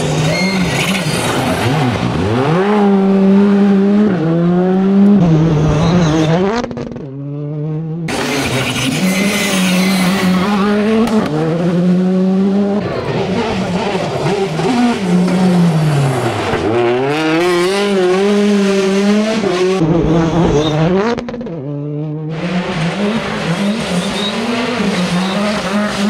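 Rally cars at full throttle on a gravel stage, three passes one after another. Each engine revs hard, its pitch climbing and dropping in steps with the gear changes, over the hiss of tyres sliding and throwing gravel.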